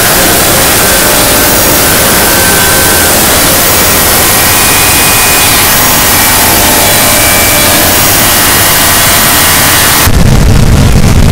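Harsh noise music: a loud, dense wall of hiss spread across the whole range, with a few faint thin tones drifting through it. About ten seconds in it cuts abruptly to a heavier, low rumbling noise.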